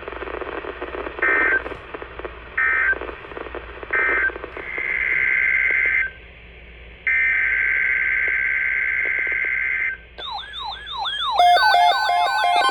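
Emergency Alert System digital data tones: three short buzzing bursts about a second apart, the end-of-message code that closes an alert, then two longer data bursts. About ten seconds in, siren-like electronic tones start sweeping up and down, followed near the end by a stepped synthesized tone pattern.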